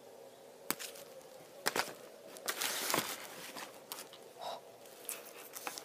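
Faint handling noise: a few sharp clicks, then a short rustle about two and a half seconds in, from a gum pack and a cellophane-wrapped candy basket being moved about in the hand.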